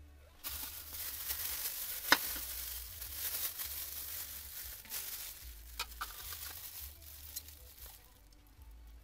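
Clear plastic wrapping crinkling as a headlight projector shroud wrapped in it is handled. A sharp click about two seconds in.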